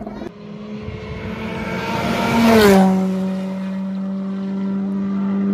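Rally car passing at speed on a dirt stage: its engine note grows louder as it approaches, is loudest about two and a half seconds in, drops in pitch as it goes by, then holds a steady note as it pulls away.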